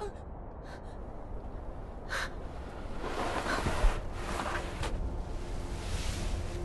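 A wounded man breathing heavily in ragged gasps, with a single dull thump near the middle.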